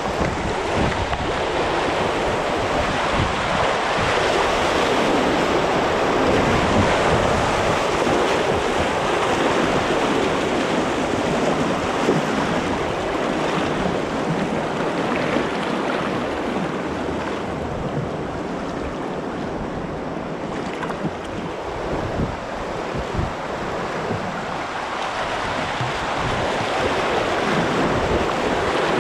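Rushing white water of river rapids around a canoe, a steady loud wash, with wind rumbling on the microphone.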